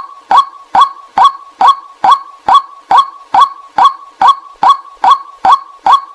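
Decoy recording of a white-breasted waterhen's call: one short call note repeated at a perfectly even pace, a little over two a second, played to lure waterhens in.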